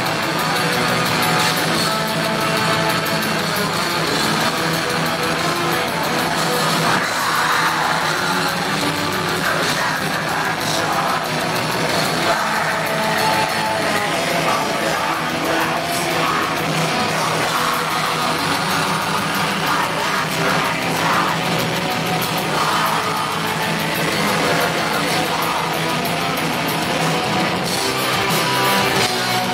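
Live heavy metal band playing loud and without a break: distorted electric guitars over drums.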